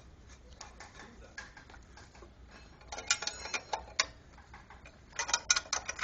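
Metal parts clinking and clicking as they are handled, in two quick clusters of sharp clicks, the first with a short metallic ring.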